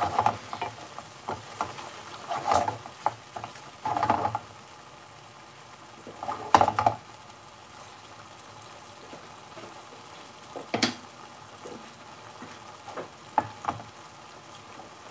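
Wooden spoon stirring and scraping a thick curry sauce around a metal frying pan in a few separate strokes, over the steady sizzle of the sauce simmering in the pan.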